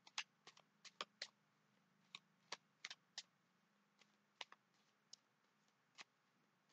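Tarot cards being shuffled by hand: a dozen or so light, sharp clicks and snaps of card edges at irregular intervals.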